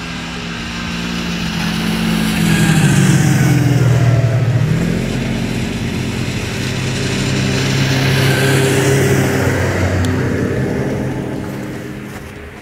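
Two snowmobiles running up the trail and passing one after the other. The engine note swells to a peak and falls in pitch as the first goes by, swells again as the second passes, then fades away.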